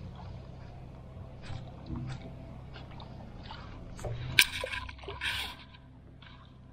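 Light water sloshing and splashing, with a few small scattered clicks and one sharp click about four and a half seconds in.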